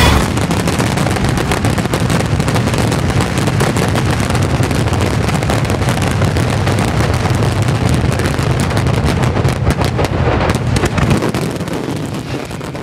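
Street firecrackers going off in a long, dense, rapid crackle of bangs. A louder flurry comes about ten seconds in, and then the bangs die away.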